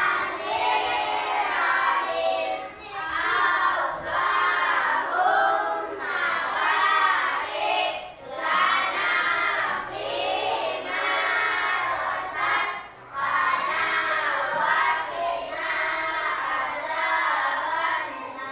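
A group of young children singing together in unison, phrase after phrase, with short breaks between lines.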